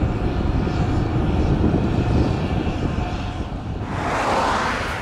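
Jet airliner engine noise from an Airbus A319, a steady low rumble. About four seconds in the sound changes abruptly to a short, higher-pitched rush of noise.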